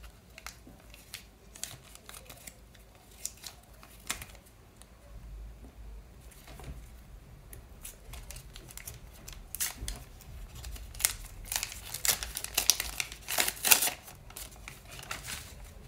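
Handmade grid-paper sheets and stickers handled by hand: a few light paper taps and rustles, then near the end a busier stretch of crinkling and rustling as a folded paper packet is opened out.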